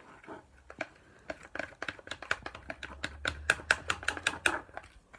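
A wooden stick stirring glue slime in a clear plastic tub, knocking against the tub's plastic walls and bottom in a quick, irregular run of clicks, several a second, that thins out near the end.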